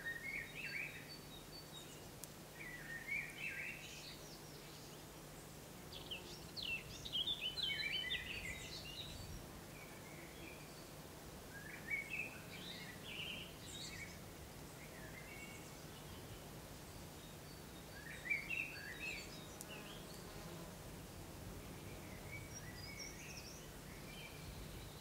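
Small songbirds singing short, busy chirping phrases about five times, over a faint steady low hum.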